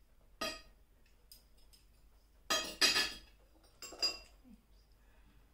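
Cutlery clinking and scraping against plates and bowls while eating: one clink about half a second in, a louder cluster of clinks near the middle, and another shortly after.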